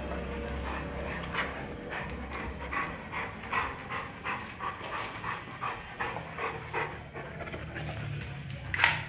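Dog panting, quick breaths about three a second, followed by one sharp, loud noise shortly before the end.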